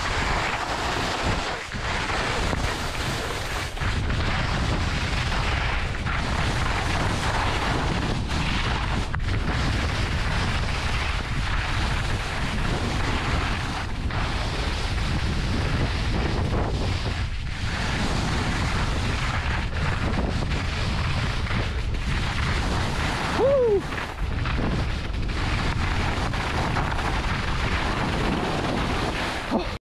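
Wind buffeting the microphone of a point-of-view camera on a skier moving fast downhill, with skis sliding over soft snow, a steady rushing noise with a heavy low rumble. A brief falling tone comes about two-thirds of the way through.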